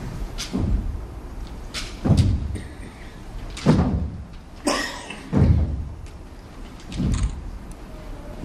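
A sword drill team stamping and moving their swords in unison on a stage. It gives five heavy thumps about every one and a half seconds, with sharper clacks among them.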